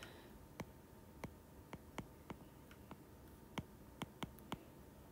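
Faint, irregular clicks of a stylus tip tapping on a tablet's glass screen while equations are handwritten, about ten of them.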